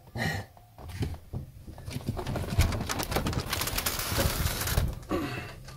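Pop-up truck camper roof being pushed up by hand: the fabric rustles and the roof frame knocks and creaks as it rises, dying down near the end. The roof is heavy with newly added solar panels, and its lift struts are judged too weak for the extra weight.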